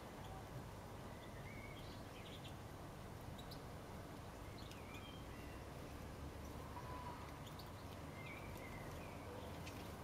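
Faint, scattered chirps of small garden birds, a few short calls spread through, over a steady low background rumble.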